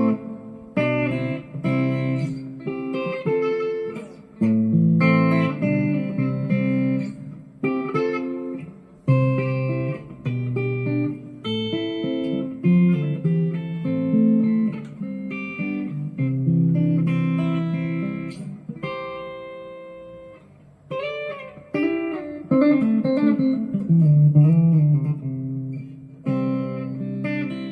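GEARIT GST-100 Strat-copy electric guitar playing a run of single notes and chords. Roughly three-quarters of the way through come bent, wavering notes.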